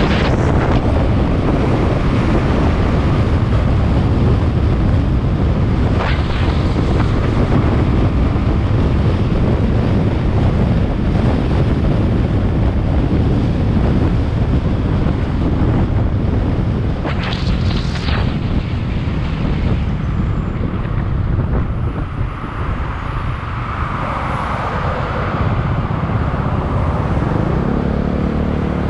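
Wind buffeting the microphone with a steady low rumble of riding over a concrete road, broken by a few sharp knocks as the wheels hit bumps or joints. Near the end a vehicle engine's steady hum comes in as the rider closes on traffic.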